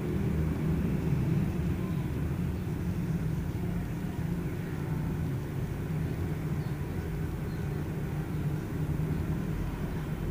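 A steady low rumble of background noise.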